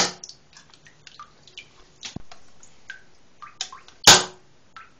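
A spring-powered airsoft Glock 26 pistol, still wet from a water soak, firing: one shot right at the start and a louder one about four seconds in, with a smaller snap of the slide being cocked just before it. Small ticks and drips of water in between.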